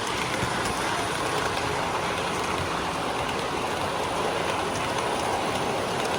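Steady rumbling hiss of model trains running on their track layout, with the general noise of an exhibition hall.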